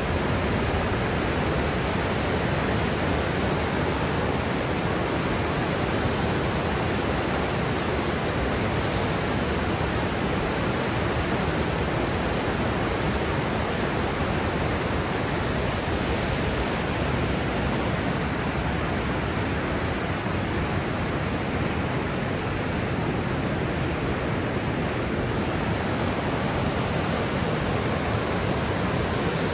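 Niagara River's class 6 whitewater rapids rushing close by, a dense, even wash of churning water that holds steady throughout.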